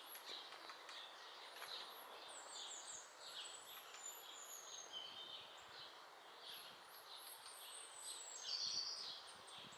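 Faint, high-pitched chirps and short trills of several small songbirds calling in the trees, loudest briefly near the end.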